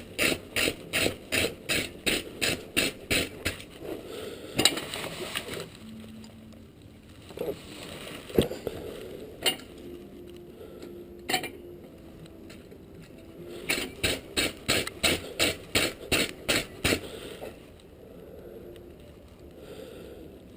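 Blacksmith's hammer striking hot steel on an anvil in rapid runs of about three blows a second: forge-welding a steel belt buckle and blending the weld seam. A few single blows fall in the pause between two such runs.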